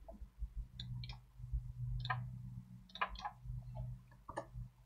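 Computer mouse and keyboard clicks: about half a dozen scattered clicks, some in quick pairs, as a command is selected, copied and pasted into a terminal. A steady low hum runs underneath.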